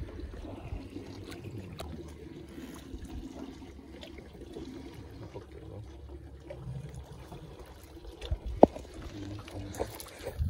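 Water lapping and trickling against the side of a small boat, with one sharp knock about eight and a half seconds in.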